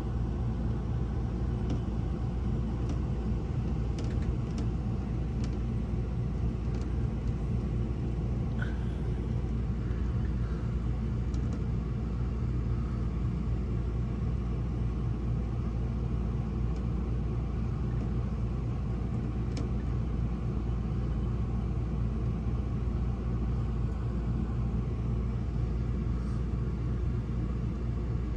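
Dust-storm wind heard from inside a motorhome as a steady low rumble, with a few faint ticks scattered through it.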